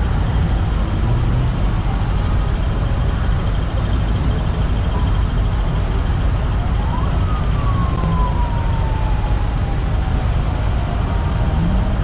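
Steady low rumble of decorated trucks' diesel engines idling side by side. About seven seconds in, a single siren-like tone rises quickly and then glides slowly down for about three seconds.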